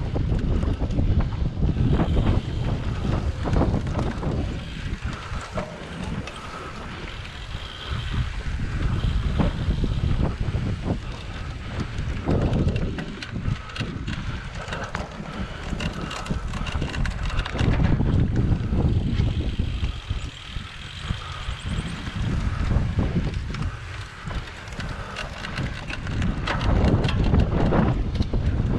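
Wind buffeting the microphone of a camera on a cyclocross bike riding over bumpy grass and dirt, with many short rattles and knocks from the bike throughout.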